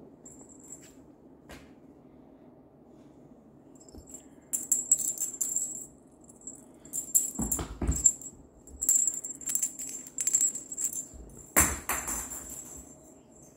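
A bell-filled cat toy jingling in repeated bursts as a kitten bats and chases it across a laminate floor, with two dull thumps, the louder one near the end as the kitten pounces.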